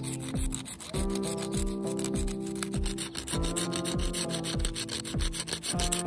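Pencil lead being rubbed on a sanding sponge, a repeated scratchy rub, over background music with held chords and a kick drum about twice a second.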